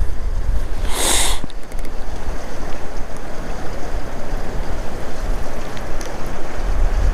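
Wind buffeting the microphone: a steady low rumble and rustle, with one short sharp hiss about a second in.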